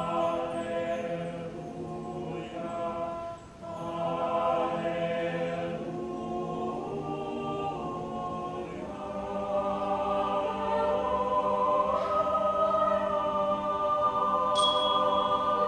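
Mixed choir singing held chords in close harmony. The sound breaks off briefly about three and a half seconds in, then the voices swell louder toward the end.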